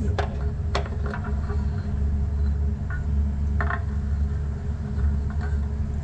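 A steady low rumble under a few scattered light clicks and knocks: metal tapping as a new anode rod is fed down through the top port of a Rheem electric water heater tank.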